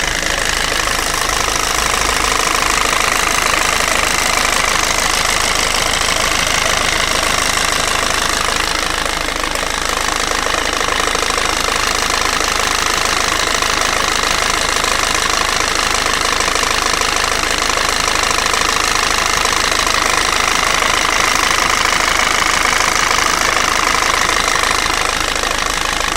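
PSA 1.6 HDi four-cylinder turbodiesel running steadily at constant speed with a dense, even clatter, a noise the owner finds strange and suspects may be a fault.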